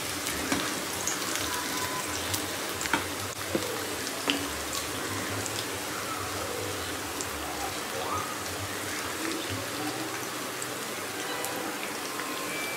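Onion pakoras (gram-flour batter fritters) deep-frying in hot oil in a kadhai: a steady sizzle with scattered small pops and crackles.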